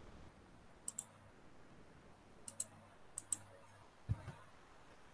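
Computer mouse clicking: three pairs of quick clicks, then a soft low thump about four seconds in.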